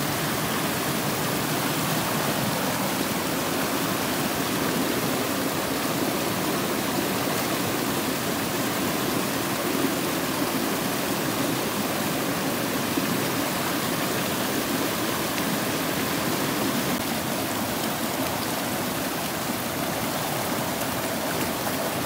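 Mountain stream rushing steadily.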